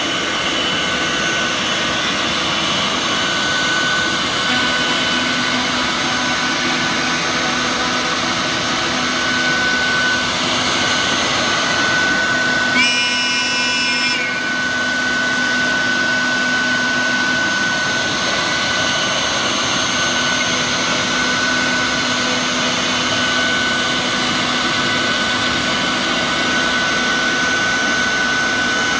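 CNC router spindle cutting a SIP panel, a steady high whine over the rush of its dust extraction. About halfway through, a higher-pitched whine sounds for roughly a second.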